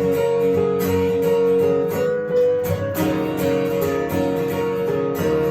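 Instrumental passage of a worship song with no vocals, led by strummed acoustic guitar over sustained chords.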